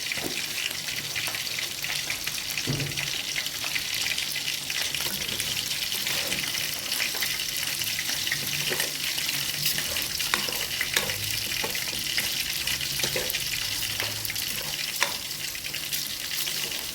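Rice sizzling as it toasts in hot oil in a pot, with a spoon stirring it and scraping now and then.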